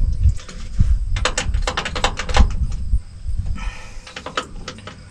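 Adjustable wrench working a cable nut on a battery terminal: a quick run of metallic clicks and rattles of wrench and hardware, with a short scrape a little past three and a half seconds and rustling handling noise underneath.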